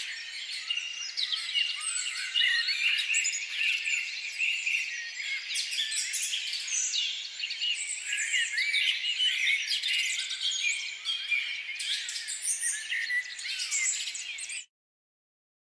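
A dense chorus of many birds chirping and chattering at once, with quick overlapping calls and pitch sweeps, which cuts off abruptly near the end.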